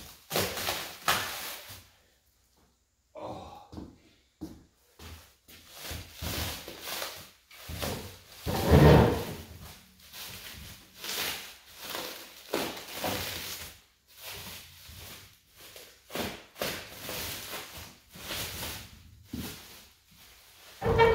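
Clear plastic sheeting rustling and crinkling in irregular bursts as it is handled, with one heavy thump about nine seconds in.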